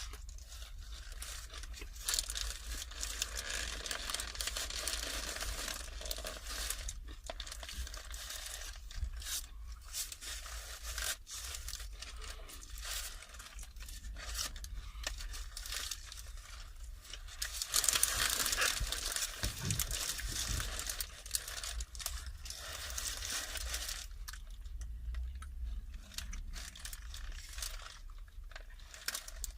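Close-miked eating of a lamb wrap: the wrap's paper wrapping crinkling and tearing with chewing, busiest about two thirds of the way through.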